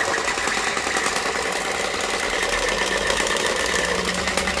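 Battery-operated Spider-Man light-up toy gun running with its trigger held: a steady, rapid buzzing rattle from its motor and mechanism, with a thin high electronic tone.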